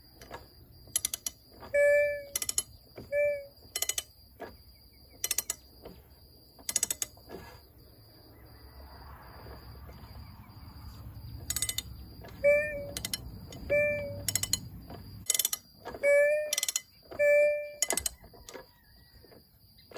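A seized-feeling Briggs & Stratton 26 hp Intek V-twin being turned over by hand with a large ratchet on the flywheel nut: sharp ratchet clicks and knocks, with six short squeaks in pairs as the engine turns. The squeaks come from an engine whose combustion chamber filled with rainwater through the exhaust and rusted.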